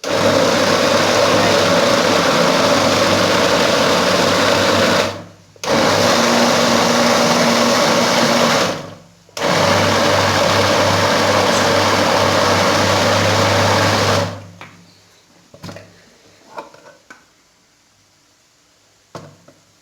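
Electric blender running in three bursts of about three to five seconds each, grinding dried figs with olive oil into a thick paste, then stopping about fourteen seconds in.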